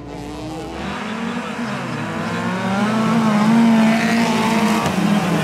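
Engines of several folkrace saloon cars running hard together, several pitches rising and falling over one another as the pack races past, loudest about three and a half seconds in.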